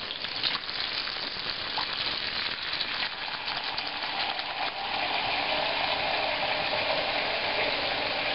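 Bathroom sink faucet running a steady stream onto the drain, the water splashing and going down the drain as a test of whether plunging has cleared the clog. The splashing grows a little fuller about five seconds in.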